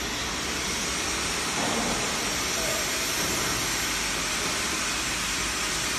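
Automatic labelling machine running, its conveyor and electric motor giving a steady hiss-like noise.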